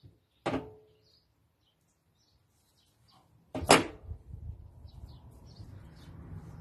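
Two short knocks with a brief ringing tone, then a louder knock about three and a half seconds in, followed by a steady low rushing noise.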